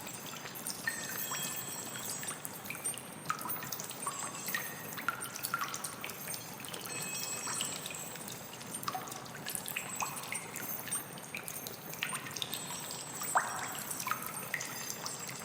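Water trickling steadily, with many small drips plinking at irregular moments.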